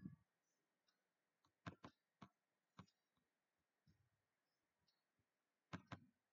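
Near silence broken by a few sharp computer-mouse clicks, with a close pair about a second and a half in and another near the end.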